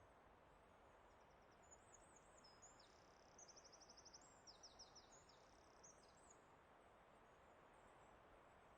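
Faint, steady hiss of forest ambience, with a small songbird singing a high, quick, varied phrase of chirps and a rapid trill from about two seconds in until about six seconds in.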